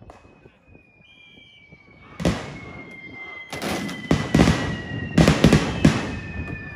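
A run of sharp bangs and pops, starting about two seconds in and loudest a little past halfway, from smoke grenades bursting.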